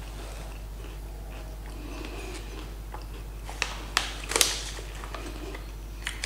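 Chewing cheese crackers, with the paper snack bag crinkling sharply as it is handled about three and a half to four and a half seconds in, over a steady low hum.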